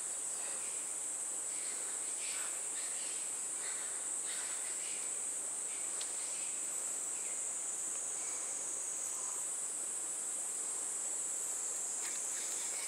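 Steady, high-pitched insect chorus, a continuous shrill trill that holds unchanged throughout.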